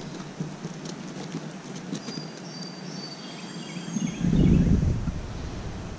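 Steady outdoor stream noise with a few faint clicks and some short, thin high chirps near the middle, then a gust of wind rumbling on the microphone about four seconds in, which is the loudest sound.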